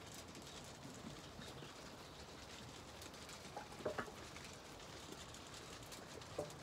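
A flock of sheep feeding and shuffling on bare ground: a faint, steady patter and rustle of hooves and mouths, with a short call about four seconds in and another near the end.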